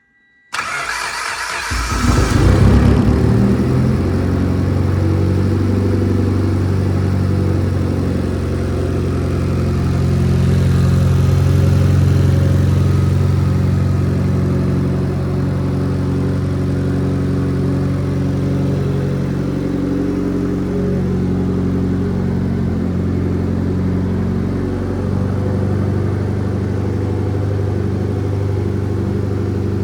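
Mitsubishi Lancer Evolution X's turbocharged 2.0-litre four-cylinder, freshly fitted with a 57 mm turbo and new exhaust manifold and not yet tuned, starting up about half a second in with a brief flare of revs, then idling steadily. The idle rises a little around ten seconds in and then settles lower.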